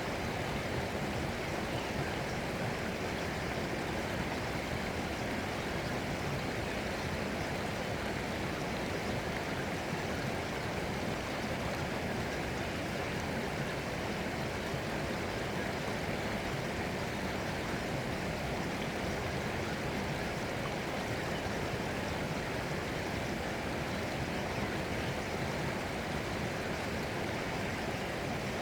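Flowing water, a steady even rush with no breaks.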